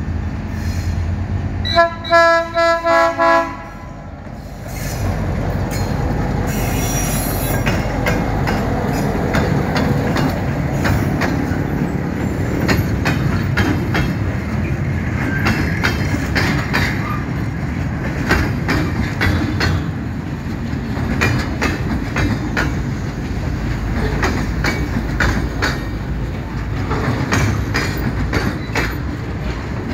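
Horn of ALCO RSD-16 diesel locomotive No. 8261 sounding a quick series of about five short toots as a friendly greeting, about two seconds in. The loaded mineral hopper train then rumbles past close by, its wheels clicking over the rail joints, with some squeal.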